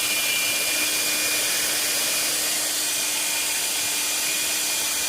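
Electric hand drill running steadily, a constant whine over a hissing rush, as it bores a hole through an engine-mount template.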